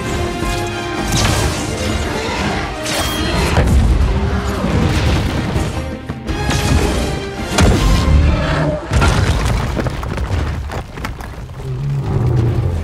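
Film score music under a battle sound mix of heavy booms and crashes, the loudest about eight seconds in; near the end a crash with falling rubble as a giant creature smashes into a stone wall.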